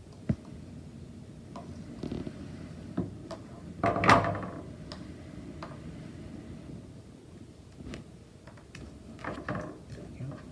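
Wire strippers cutting and pulling the insulation off a hookup wire, heard as scattered small clicks and handling knocks with one louder snap about four seconds in.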